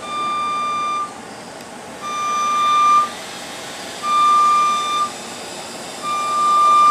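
JLG scissor lift's motion alarm beeping as the platform lowers: four one-second beeps about a second apart, over a steady background hum.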